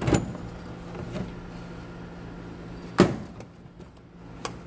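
Metal tool cabinet drawers being worked: a knock just after the start, a louder knock about three seconds in, and a short sharp click near the end.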